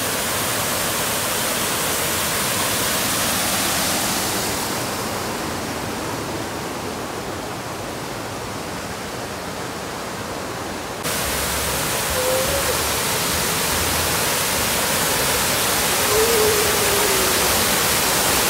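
Waterfall pouring over rock ledges into a pool: a steady rushing hiss. It dulls and softens for several seconds in the middle, then comes back full and bright all at once. Two faint short whistle-like calls sound over it in the later part.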